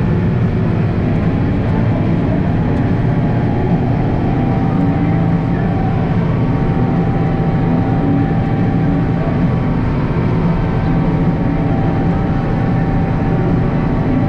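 International Harvester 1586 tractor's six-cylinder diesel engine running steadily at an even level.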